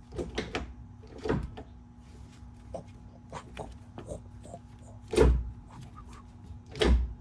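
A series of knocks and clunks, the two loudest about five and seven seconds in, over a faint steady hum.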